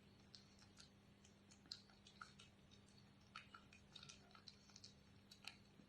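A cat chewing soft food: faint, irregular small wet clicks, with a low steady hum underneath.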